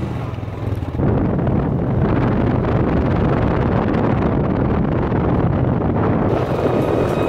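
Wind buffeting the microphone over the running engine of a moving quad bike; about a second in, the wind rumble jumps up and stays loud.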